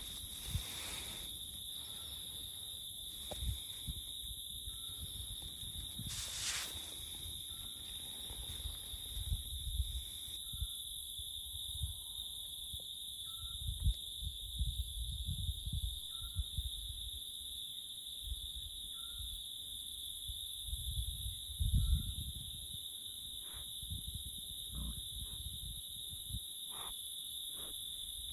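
Forest ambience: a steady high-pitched drone with a faint short chirp repeating every second or two. Low rumbles come and go, and a few light snaps sound near the end.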